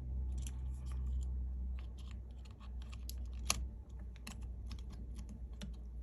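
Light, irregular clicks and taps of a smartphone's motherboard and small parts being handled and fitted into the phone's frame, the sharpest click about three and a half seconds in, over a steady low hum.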